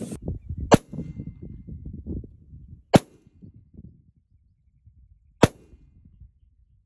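Three single pistol shots from a TISAS D10 10mm 1911, each a short sharp report, spaced about two and a half seconds apart.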